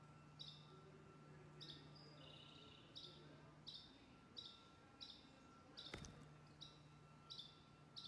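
Faint short chirps from a juvenile downy woodpecker, repeated about once every two-thirds of a second. A single sharp knock about three-quarters of the way through.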